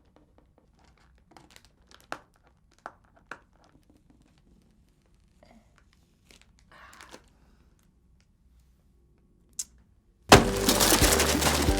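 Packaging and plastic toy pieces being handled: scattered light clicks and taps and a brief crinkle. Loud music starts about ten seconds in.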